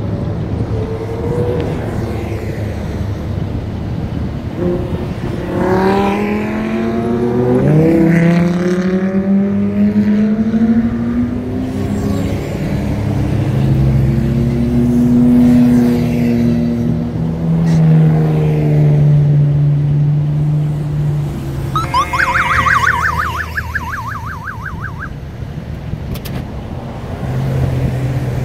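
Highway traffic passing, with cars' and trucks' engines running. About six seconds in, one engine rises in pitch as it accelerates through its gears. A semi-truck's diesel engine drones steadily in the middle. About 22 seconds in, an emergency siren gives a brief, rapid warble for about three seconds as police vehicles pass.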